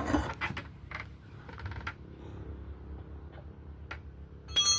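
Scattered light clicks and knocks, then about four and a half seconds in a brief, louder ringing metallic strike.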